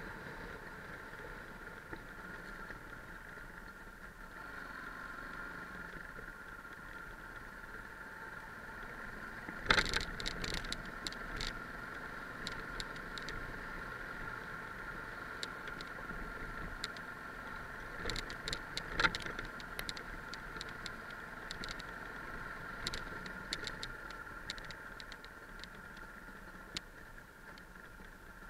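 Yamaha 660 single-cylinder dual-sport motorcycle running steadily along a rough gravel track, with scattered knocks and rattles from stones and bumps. A sharp knock about ten seconds in is the loudest, and another strong one comes near nineteen seconds.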